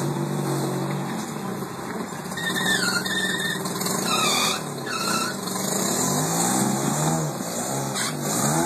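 Off-road vehicle's engine running under load as it backs up over rocks, revving up and down several times in the second half, with a few short high squeals about three and four seconds in.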